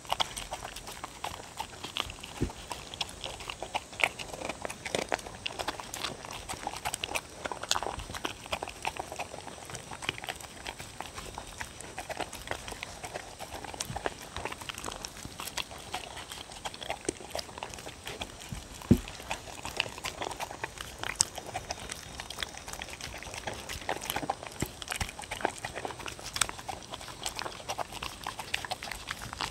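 Two dogs eating soft chicken, egg and bell pepper from wooden bowls close to a microphone: continuous wet chewing and licking, with many small clicks and knocks against the bowls.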